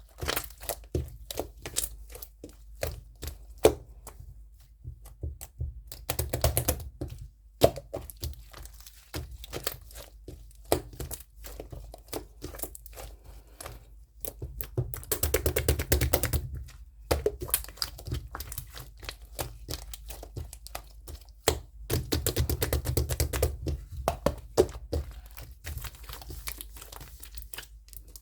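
Close handling of small objects, such as paper or plastic, with frequent taps and clicks. Three longer bursts of crinkling or tearing come in between.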